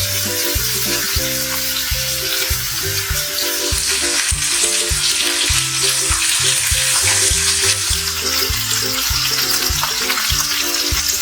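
Food sizzling and frying in a hot pot, the sizzle swelling for a few seconds around the middle, under background music with a bouncy bass line.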